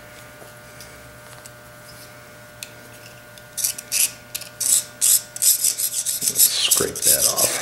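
A small knife blade scraping gunk off the thin cleaning-needle wire of a Coleman stove generator. After a few quiet seconds, it comes in quick, repeated rasping strokes, about three a second.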